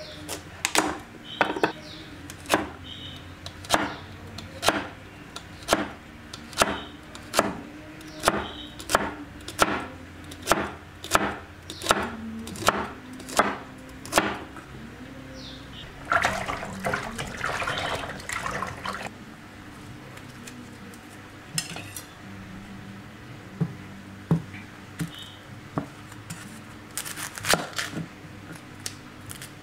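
Large kitchen knife chopping celery on a thick wooden chopping block: a steady run of sharp knocks, about two a second, lasting some fourteen seconds. Then scraping and rustling, and a few scattered knife knocks on the board as an onion is trimmed.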